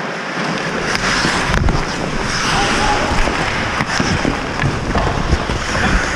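Ice hockey skates scraping and carving the ice near the goal, with a low rumble and a few sharp stick or puck clacks.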